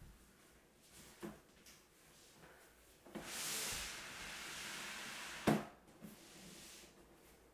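A long wooden cubby shelf being slid across a laminate floor on a cloth: a light wooden knock about a second in, a couple of seconds of scraping hiss, then a sharp wooden knock, the loudest sound, a little after five seconds, with a smaller one just after.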